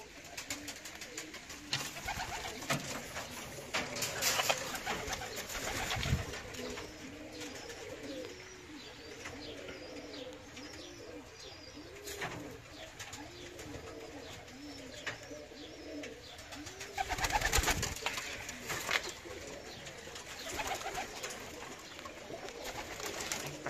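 Young pigeons cooing in a loft: a run of low coos that each rise and fall, about one a second, with a few louder bursts of wings flapping.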